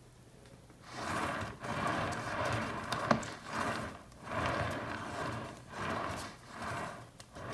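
Swivel turntable under a painted canvas spun by hand in repeated pushes. Its rolling noise starts about a second in, then rises and fades with each push about once a second, with one sharp click partway through.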